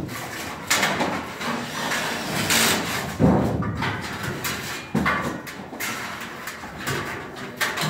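Light-gauge steel studs clanking, knocking and scraping as a stud is handled and fitted into metal framing, with a heavier thump a little past three seconds in.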